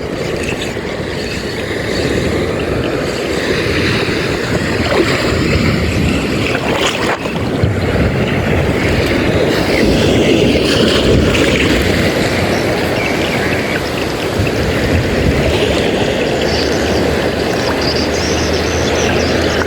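Boat underway at sea: a steady rush of water and wind on the microphone, with a low engine hum showing in the last few seconds.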